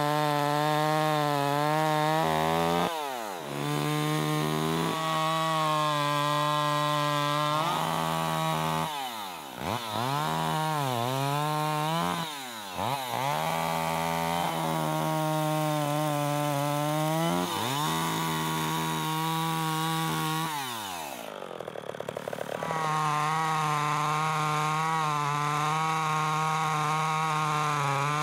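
Stihl 020 AV Super two-stroke chainsaw running at full throttle through cuts. Its pitch sags and recovers several times as the chain bites into the wood, dropping away once about three-quarters in. It then runs steadily again, sawing through a thick log.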